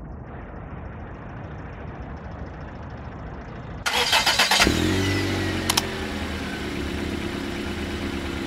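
Toyota Corolla's engine being started: after a low steady rumble, the starter cranks for under a second about four seconds in, then the engine catches with a brief rev and settles to a steady idle. A single sharp click a second later.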